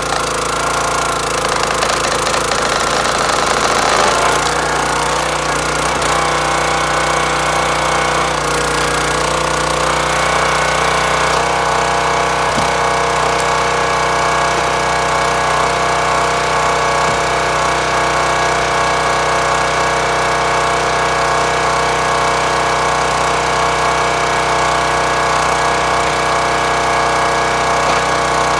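Small gas engine of a hydraulic log splitter running steadily. In the first few seconds the ram pushes an ash round through a four-way wedge, and the engine's note changes about four seconds in and again around eleven seconds.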